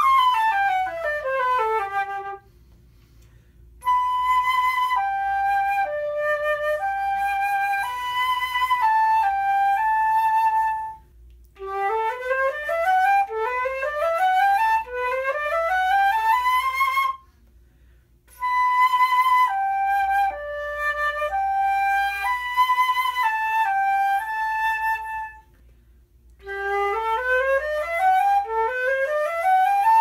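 Solo concert flute with gold headjoints playing the same test passage several times over. Fast arpeggios sweep down and then up through the range, each followed by a slower phrase of held notes, with short breaks between. The passage is played in turn on a Powell 19.5K headjoint and on Haynes 14K P-cut and N-cut headjoints to compare their tone.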